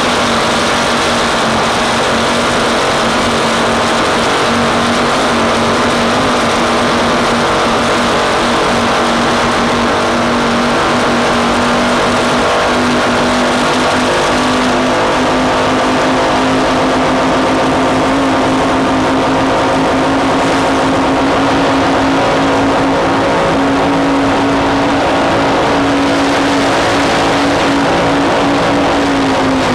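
Racing powerboat's engines running hard at speed, a loud steady drone whose pitch creeps slowly higher through the second half and dips slightly near the end, over a constant rushing hiss of wind and water.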